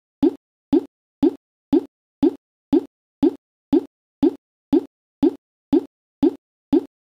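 A short, low electronic blip or pop repeated exactly twice a second, each one identical, with dead silence between.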